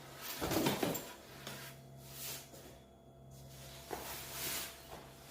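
A strapped cardboard shipping box being opened and handled, making rustling and scraping. The loudest scrape comes about half a second in, with softer rustles after it. A steady low hum runs underneath.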